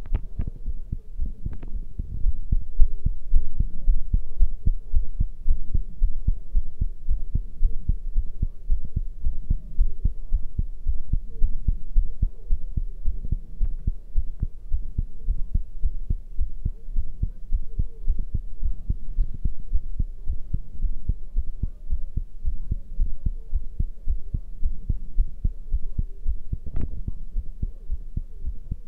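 A person's heartbeat after exercise: a steady run of low thuds, with a couple of brief sharper clicks, one near the start and one near the end.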